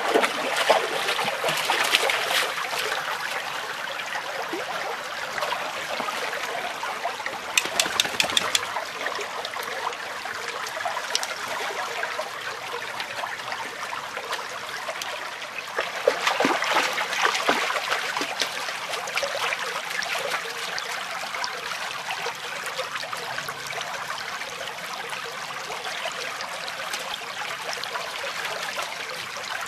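Shallow stream trickling steadily while a Labrador retriever wades and splashes through the water, the splashing loudest at the start and again just past halfway. About a quarter of the way in comes a brief, quick run of sharp clicks.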